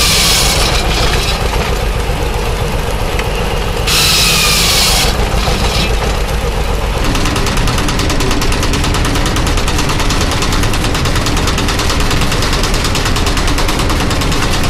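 Circular saw of an engine-driven shingle mill running and cutting through wood twice, about four seconds apart. About seven seconds in it gives way to a small grain mill running with a fast, even clatter.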